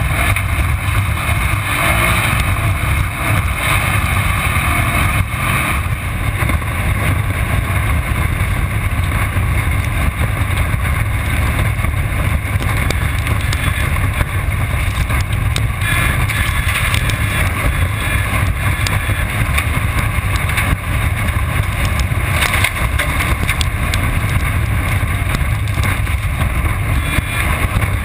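Off-road race car at speed, heard from inside on the car: loud, steady engine and drivetrain noise with a deep rumble.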